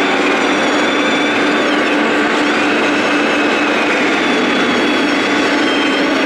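Radio-controlled scale model trucks running: a steady mechanical drone with several high whines that shift slightly in pitch.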